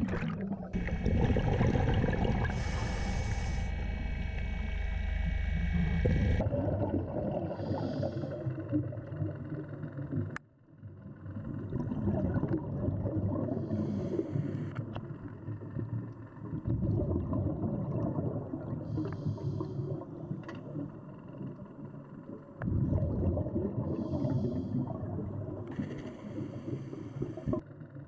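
Underwater recording. For the first six seconds there is loud, steady machinery noise from the boat or its chute, with a high whine, while shell rubble pours down the chute. After that comes a diver's scuba regulator: bubbles gurgle on the exhale and a short hiss comes on the inhale, in a slow breathing rhythm every five to six seconds.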